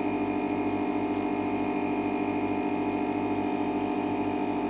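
Steady electrical hum with many overtones and a fast, even flutter, unchanging throughout.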